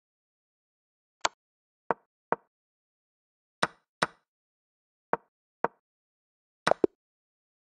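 Online chess board move sound effects: short sharp clicks, one for each move played, coming in a quick irregular series of about nine, the last two close together near the end.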